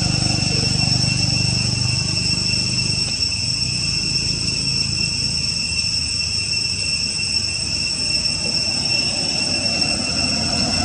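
A steady, high insect drone, with a low engine hum at the start that fades away after about three seconds.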